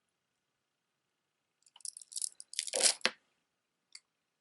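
Handling noise from jewelry and its packaging being sorted: a crinkling, crackling rustle lasting about a second and a half, loudest near the end, then one short click.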